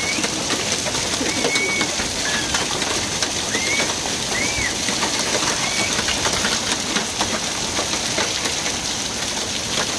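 Hailstorm: hail and rain falling steadily on the road and surroundings, with many sharp ticks of hailstones striking. A bird gives several short high chirps during the first six seconds.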